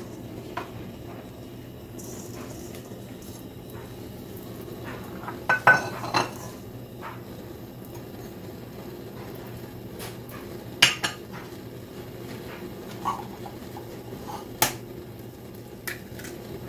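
A spoon and dishes clinking while spices are added and mixed, a few sharp clinks at a time, the loudest about six seconds in and about eleven seconds in, over a steady low hum.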